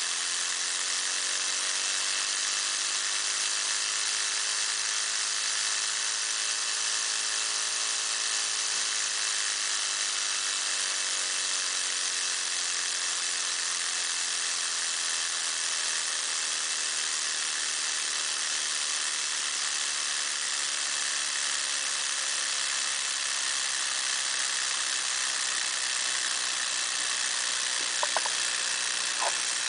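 Micro two-cylinder opposed air engine running on compressed air: a steady hiss of air with a fast whir whose pitch rises gently, then eases back down and holds. A few small clicks near the end.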